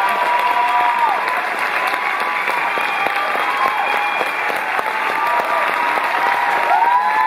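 Audience applauding steadily in a theatre, with a few long held whoops over the clapping, one fading about a second in and more rising near the end.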